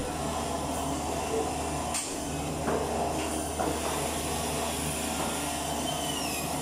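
Indoor market ambience: a steady low hum under general background noise, with one sharp click about two seconds in.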